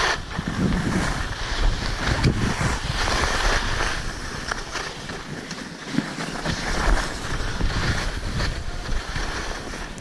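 Skis hissing and scraping over packed snow, swelling and fading with each turn, over low wind buffeting on an action camera's microphone while skiing downhill.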